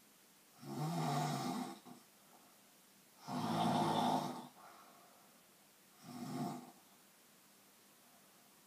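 Snoring: three loud snores about two and a half seconds apart, the middle one the longest and loudest, the last one shorter and weaker.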